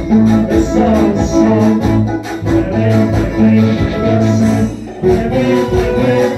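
Music playing loudly: held melody notes over a pulsing bass line, dipping briefly about five seconds in.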